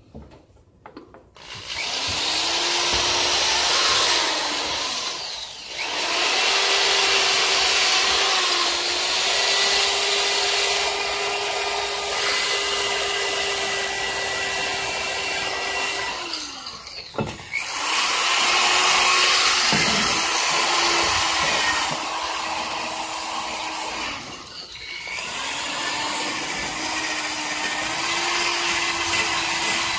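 Corded electric drill running while stripping paint off a bicycle frame: a steady motor whine over a harsh scraping hiss. It starts about a second and a half in and stops briefly three times before starting again.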